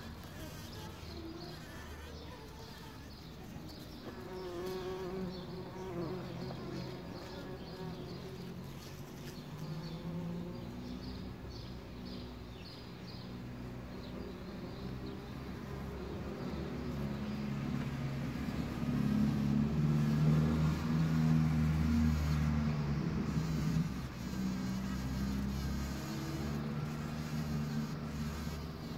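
Bumblebee buzzing as it forages in a poppy flower: a low hum that keeps shifting in pitch, growing louder through the second half and loudest about two-thirds of the way through.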